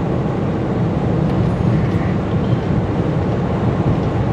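Steady tyre and wind noise inside the cabin of a Tesla Model Y Performance cruising at about 65 mph on 22-inch wheels with Pirelli tyres, a low even rumble with no engine note.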